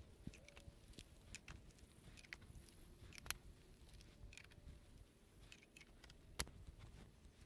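Near silence with faint scattered clicks and ticks, two slightly louder ones about three seconds in and near the end.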